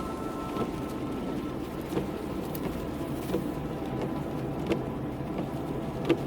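A car's engine running steadily, with a few faint clicks scattered through.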